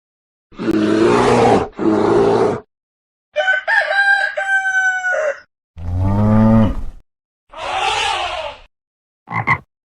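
A string of short, separate animal calls with silent gaps between them. Two rough calls come first, then a rooster crowing for about two seconds a little over three seconds in, then a low call that falls in pitch, another rough call, and a very short one near the end.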